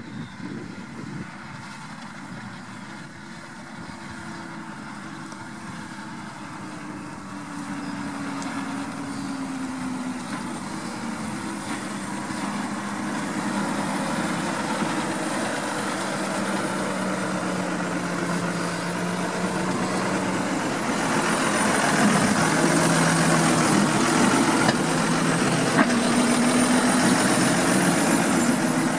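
John Deere 6215R tractor's six-cylinder diesel engine running steadily as it pulls a fertiliser spreader across a field, its pitch drifting a little, growing louder as it approaches and loudest in the last third as it passes close. A faint high whine comes in over the loudest part.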